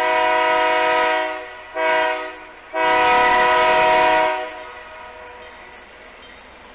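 Air horn of an approaching freight-train diesel locomotive sounding three blasts, long, short, long, as a chord of several steady notes. A faint rumble of the train remains after the horn stops.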